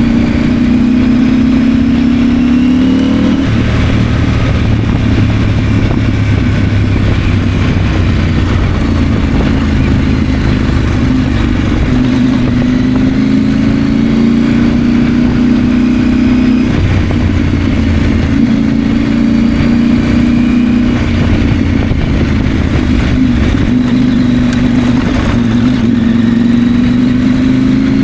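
KTM 890 Adventure's 889 cc parallel-twin engine under way, its note rising and dropping again several times as the bike accelerates and eases off.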